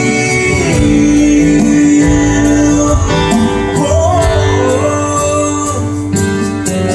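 Live band playing the closing bars of a country-gospel song, with plucked guitar, bass and sustained chords.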